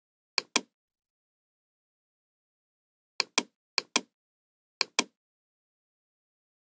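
Computer mouse clicks: four pairs of short, sharp clicks, each pair about a fifth of a second apart. The first pair comes about half a second in, and three more pairs fall between three and five seconds in.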